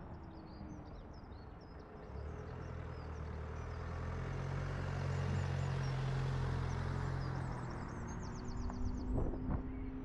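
Car driving along a road: engine and tyre noise that swells over the middle few seconds, then eases. Small birds chirp above it, with a quick rapid trill near the end.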